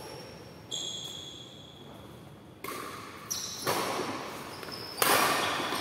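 Badminton rally: rackets striking the shuttlecock five times, each hit a sharp crack with echo from the hall. The last hit is the loudest, and the first is followed by a high ringing note.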